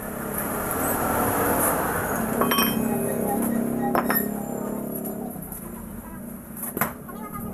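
Sharp ringing clinks of steel tools and parts, a hammer and drift on a truck steering knuckle during king pin replacement, three times. Under them a broad rumble swells and fades over the first few seconds.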